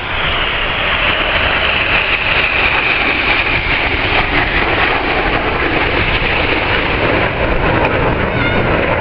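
Red Arrows BAE Hawk T1 jets roaring past overhead, with a whine that slowly falls in pitch as they pass.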